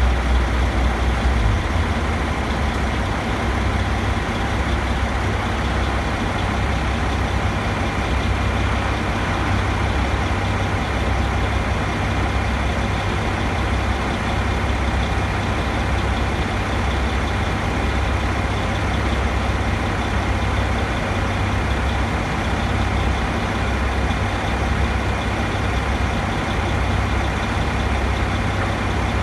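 Heavy crane engine idling steadily, a low rumble that holds level throughout.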